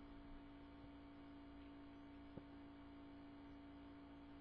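Near silence with a faint steady hum and one faint click about two and a half seconds in.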